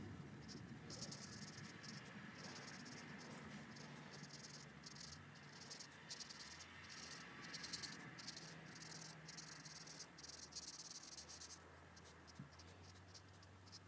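Faint scratching of a Stampin' Blends alcohol marker colouring a stamped sunflower on cardstock, in many short, repeated strokes.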